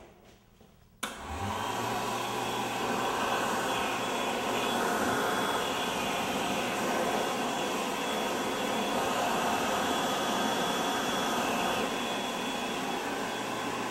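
Bradley wall-mounted warm-air hand dryer switching on with a click about a second in, its motor spinning up and then running steadily, blowing air from the nozzle onto hands held under it.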